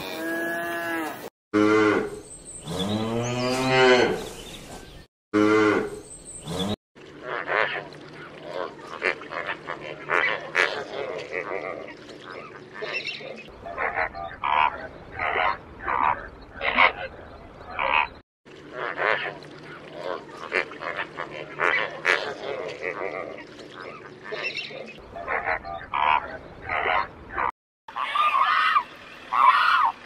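Cattle mooing: three long, drawn-out moos in the first few seconds. Then a flock of flamingos honks and chatters, many short calls overlapping at a few per second, for most of the rest. Near the end a different bird's calls take over.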